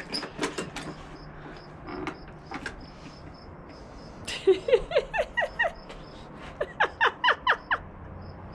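Two bursts of laughter, each a quick run of short, high 'ha' notes lasting about a second and a half, the first about four seconds in and the second shortly after.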